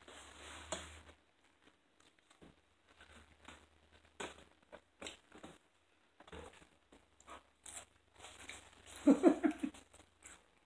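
Close-up eating sounds: chewing and biting with scattered small clicks, crinkles and rustles of food and takeout packaging. Near the end comes a short, louder burst of voice.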